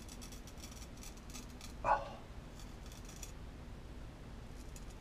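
Ceramic chef knife blade scraping through beard whiskers: faint, quick rasping strokes that pause after about three seconds and start again near the end. One short, louder blip about two seconds in.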